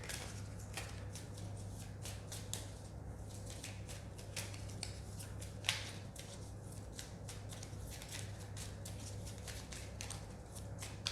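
A tarot deck being shuffled and handled by hand: a continuous run of soft card slaps and riffles, with one sharper snap about halfway through, over a steady low hum.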